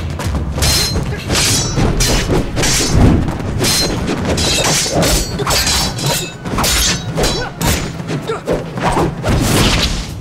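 Movie fight-scene soundtrack: a rapid run of about a dozen weapon swishes and struck blows over background music.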